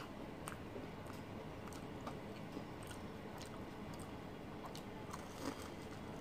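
Faint chewing of crispy fried banana fritters (pisang goreng), with small crunchy crackles every half second or so.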